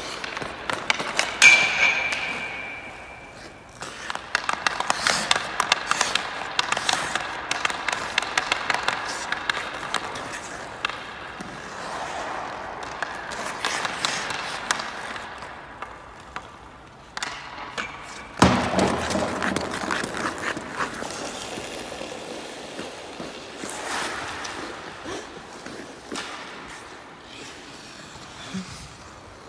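Ice hockey skates scraping and carving on the ice while a hockey stick clicks against pucks in quick taps. A sharp ringing ping comes about a second and a half in, and a loud thud about eighteen seconds in.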